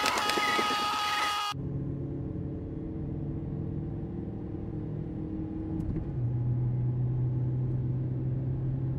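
A loud held sound cuts off abruptly about a second and a half in. Then a car engine hums steadily as heard from inside the cabin, its note dropping slightly and getting louder about six seconds in.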